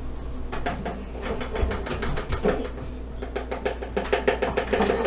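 Cornstarch being shaken out of its box into a measuring cup: a quick run of small taps and rustles that grows denser and louder near the end.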